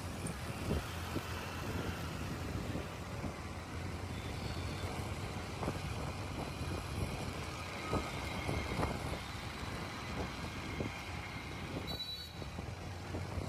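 Road traffic noise: the steady low rumble of vehicle engines and tyres, with a few short knocks.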